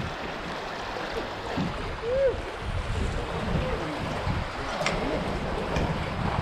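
River current rushing and lapping around a canoe as it is paddled through moving water, with the paddle working beside the hull and low wind rumble on the microphone.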